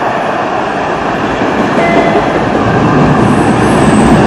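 MBTA Orange Line subway train, Hawker Siddeley-built cars, running past on the tracks, its rumble of wheels on rail growing steadily louder as the cars go by.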